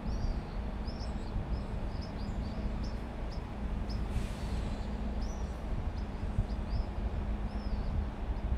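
Low, steady rumble of an electric train drawing away down the line, with small birds chirping over it in short, repeated calls.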